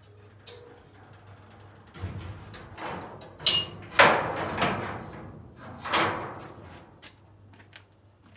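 Corrugated sheet-metal gate being shut by hand: rattling and scraping metal, a short squeal about three and a half seconds in, a loud clang about four seconds in, and another rattle about two seconds later.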